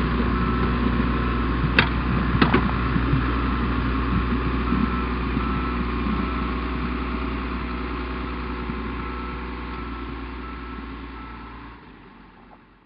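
Tigercat tracked forwarder's diesel engine running as the machine reverses off a low-loader trailer, with its reversing alarm beeping at a steady pace. Two sharp knocks come about two seconds in, and the sound fades out near the end.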